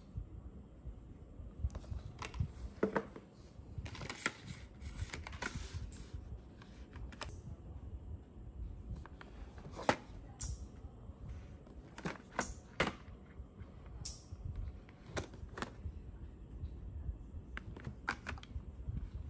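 Cardboard product boxes and plastic blister packaging handled on a wooden table: scattered light taps, clicks and rustles at an irregular pace.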